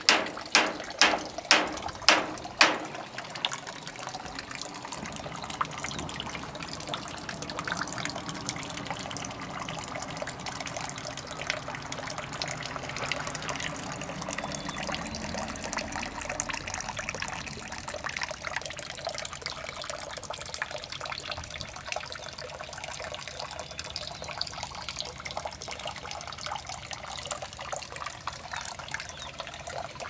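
Water trickling and splashing steadily. Over the first three seconds a run of sharp, loud clicks comes about twice a second.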